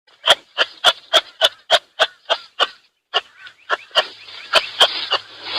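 An animal giving a rapid series of short, sharp calls, about three a second, breaking off briefly near the middle and resuming less evenly before cutting off abruptly.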